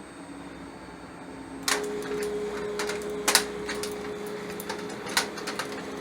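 Hybrid stepper servo motor driving a belt-driven linear actuator axis, starting up a little under two seconds in: a steady whine with irregular clicks and rattles over it as the axis moves.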